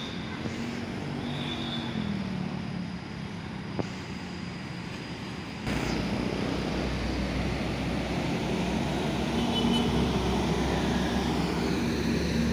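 Intercity coach's diesel engine running with a steady low rumble, which steps up in loudness about six seconds in.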